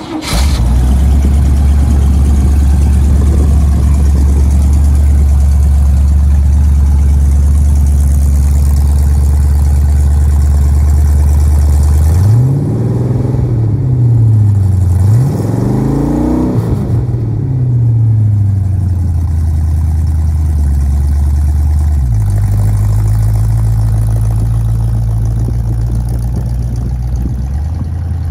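1929 Ford Roadster hot rod's 4.2-litre V8 idling with a steady low rumble. It is revved twice about halfway through, each rev rising and falling back to idle. A few seconds later the idle note changes as the car pulls away slowly.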